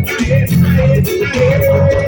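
Live carnival band music with a steady beat: a sustained melody line, likely guitar, over pulsing bass and drums.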